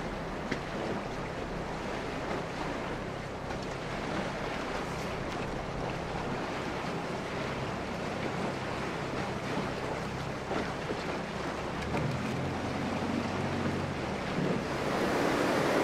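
Steady rush of river water and wind noise around a fishing boat, with a low steady hum underneath.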